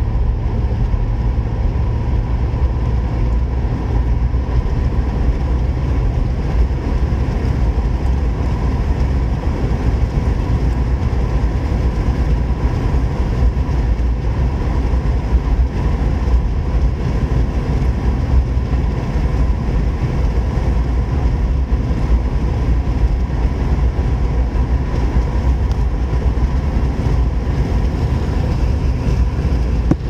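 Steady engine and road noise inside the cabin of a Suzuki Grand Vitara driving at about 55 to 85 km/h, mostly a low rumble with a thin steady whine above it.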